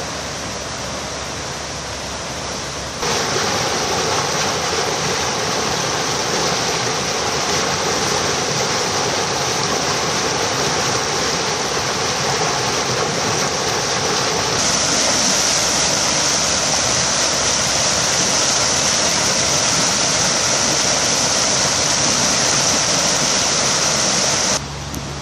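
Floodwater gushing up out of a storm drain in a flooded street, a steady rushing and churning of water that gets louder about three seconds in and changes again around the middle.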